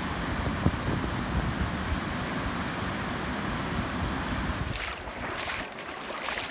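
Wind buffeting the microphone over a steady rushing noise. About five seconds in the low rumble drops off and a few short scuffing noises follow.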